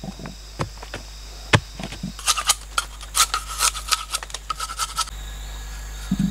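A large knife shaving a bamboo stake to a point: a run of quick, crisp scraping strokes, about five or six a second, from about two seconds in, stopping near the five-second mark. Before it come a few scattered dull knocks of a bamboo pole digging into soil.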